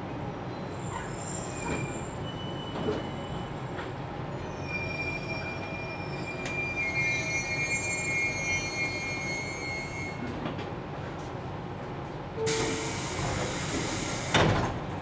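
JR Kyushu 813 series electric train slowing to a stop, heard from inside the car. Over the running noise come high thin squeals from the wheels and brakes, then a short sharp hiss about twelve and a half seconds in, and a brief loud knock near the end.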